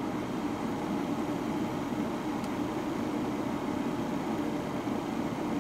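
Triumph TR7 heater blower fan running steadily, a constant whir of the motor and rushing air.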